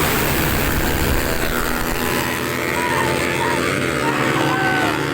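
Honda Megapro motorcycle's single-cylinder four-stroke engine running loud and steady at high revs.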